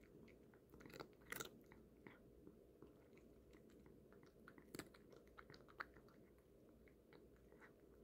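A cat chewing and crunching dry Temptations cat treats: faint, irregular crunches with a few louder bites, about a second and a half in and again near five seconds in.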